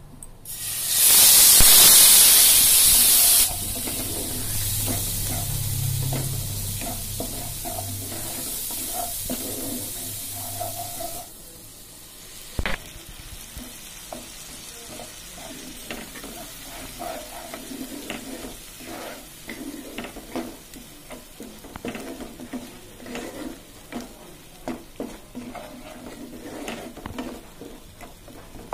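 Water poured onto ground spices in hot oil, setting off a loud burst of sizzling about a second in that settles into a steady sizzle. About eleven seconds in this gives way to a wooden spatula stirring and scraping a mustard and green-chilli spice paste as it fries in a nonstick pan, with soft sizzling and frequent scrapes.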